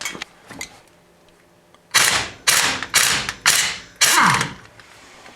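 Impact wrench rattling in five short bursts about half a second apart, loosening the five bolts that hold the front axle in; the last burst winds down in a falling whine.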